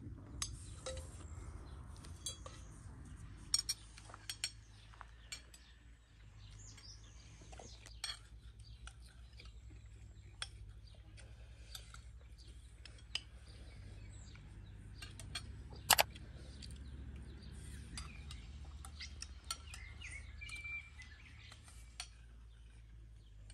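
Metal spoons clinking and scraping on plates as people eat, with scattered sharp clinks and the loudest pair about two-thirds of the way through. Birds chirp now and then in the background.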